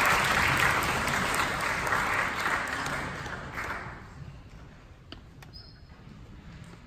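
Audience applauding, fading away about four seconds in to a quiet hall with a few small clicks.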